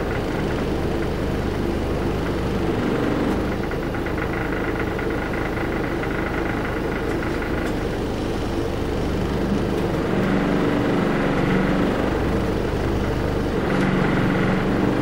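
Large bus's diesel engine running at low speed as the bus creeps along, heard from inside the passenger cabin. The steady hum grows a little louder and higher about ten seconds in.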